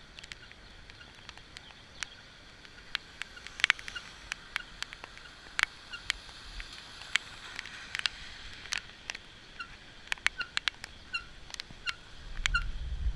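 Rain dripping: irregular sharp taps and small ringing plinks of drops striking surfaces over a faint steady hiss. A low rumble comes in near the end.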